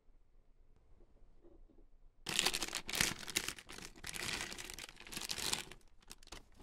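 Toy packaging crinkling and tearing as it is opened, starting about two seconds in and running dense for about three seconds, then trailing off into a few separate crackles.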